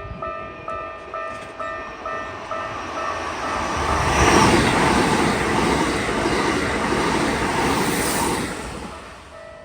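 Keikyu electric train passing a level crossing at speed: a loud rush of wheels and air that builds about three seconds in and falls away near the end. Under it, the crossing's alarm bell dings about twice a second and is drowned out as the train goes by.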